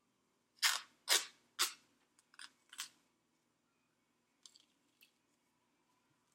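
White athletic tape being pulled off the roll in quick strips: three loud ripping bursts about half a second apart, then several softer ones.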